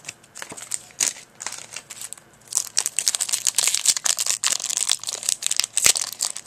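Foil trading-card booster pack wrapper crinkling and crackling as it is handled and opened, a few scattered crackles at first and then an almost continuous run from about two and a half seconds in.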